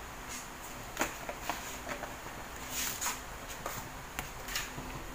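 Cooking oil heating in a frying pan, spitting with scattered small crackles and pops, followed right at the end by one loud knock.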